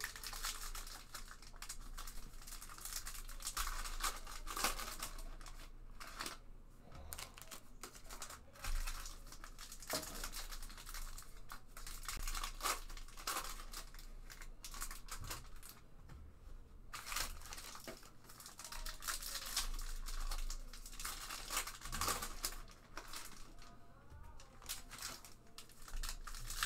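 Foil trading card pack wrappers being torn open and crinkled, a continuous crackling and rustling.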